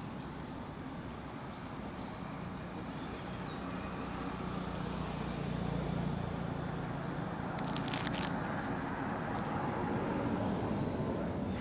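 Steady low outdoor rumble that grows louder toward the middle, with faint steady high insect tones over it and a short rustle about eight seconds in.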